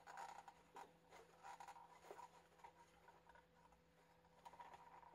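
Near silence with faint scattered scratches and light ticks of fingers working at the plastic battery cover of an FPS1000HD high-speed camera, trying to pry it open.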